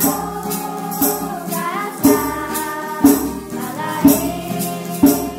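Background music of a Kavalan folk song: a voice singing over a steady beat of about one stroke a second with jingling percussion, fading near the end.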